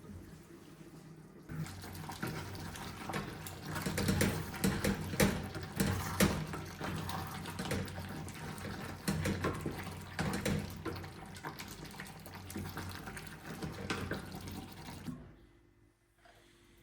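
Water running from a tap into a sink, with knocks and splashes of something being handled under it; it starts about a second and a half in and is shut off suddenly near the end.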